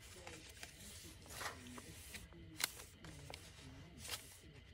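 Faint paper handling as pages of a handmade junk journal, thick with layered tags, pockets and ephemera, are turned and smoothed by hand: soft rustling with a few sharp flicks of paper, the sharpest about two and a half seconds in.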